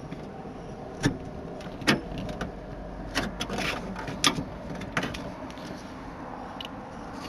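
Mazda MX-5 NB door being worked on by hand to pry out a grommet from the inner door skin: a handful of sharp clicks and light knocks, spaced irregularly over the first five seconds.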